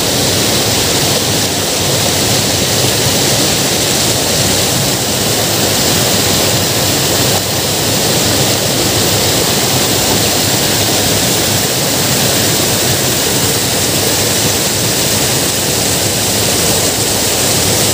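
Steady rushing of water pouring through a lake's overflow outlet, an even, unbroken wash of sound.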